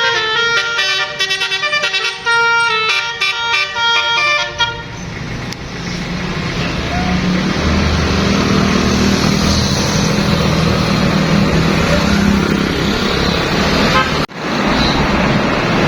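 Bus telolet horn playing a quick melody of stepped musical tones for about the first five seconds. After that comes a loud, steady engine and road rumble, with a brief drop-out near the end.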